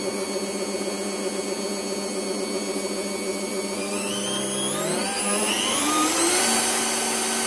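Bosch PBD 40 drill press running steadily at 200 RPM in first gear, then speeding up with a rising whine as its electronic speed knob is turned up about four seconds in, and settling at the higher speed near the end.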